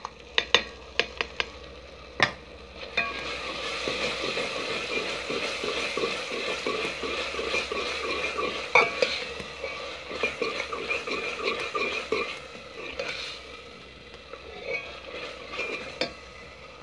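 Onion and tomato frying in a metal pot, sizzling as a metal spoon stirs and scrapes through them. Several sharp clinks of metal on metal open the sound as chopped greens are tipped in from a plate, and the sizzling and stirring grow louder about three seconds in, then ease off near the end.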